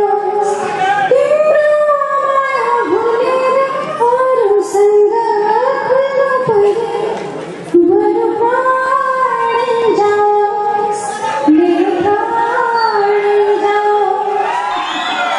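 A female singer singing a melody solo into a handheld microphone, amplified through the hall's sound system, holding long notes that bend up and down in pitch.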